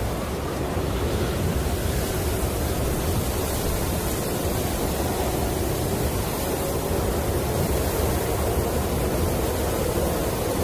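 Snowstorm wind blowing steadily as an even rushing noise, heavy in the low end, with no gusts or breaks.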